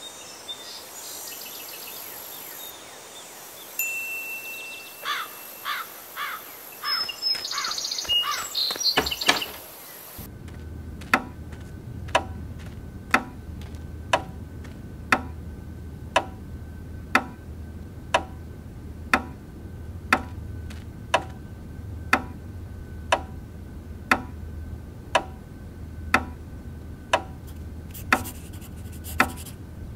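A clock ticking steadily, about one tick a second, starting about a third of the way in over a low hum. Before it, a run of quickening taps with a few short high tones.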